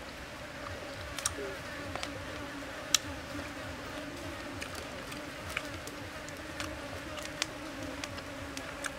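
Steady insect buzzing, a low hum held on one pitch throughout, with scattered sharp clicks and ticks over it.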